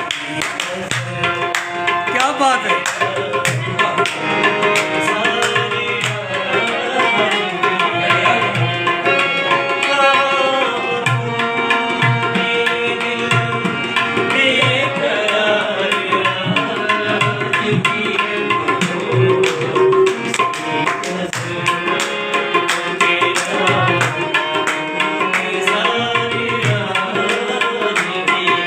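Two harmoniums playing an instrumental melody together, the reeds holding full chords, over a brisk tabla rhythm.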